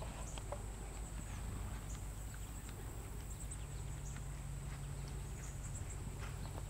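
Faint, muffled hoofbeats of a horse moving over a sand arena, with a steady low rumble behind them.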